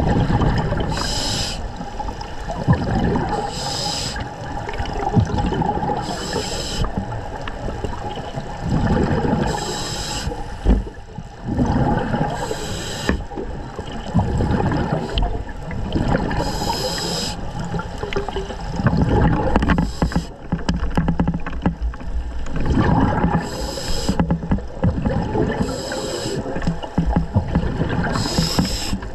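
Scuba diver breathing through a regulator underwater: a short hiss on each inhale every few seconds, with rumbling, gurgling exhaust bubbles between the breaths.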